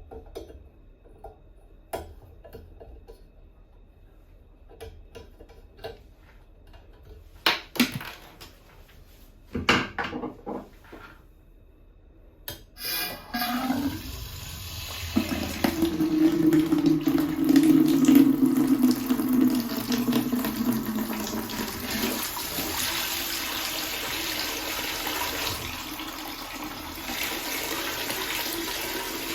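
A few light clicks and knocks, then water from a bathroom faucet turned on about 13 seconds in and left running in a loud, steady rush. A low steady tone sits under the flow for several seconds after it starts.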